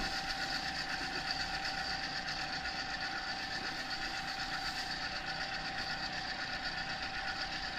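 Electric paddle mixer running steadily, stirring sealant compound, with a constant tone over its motor noise.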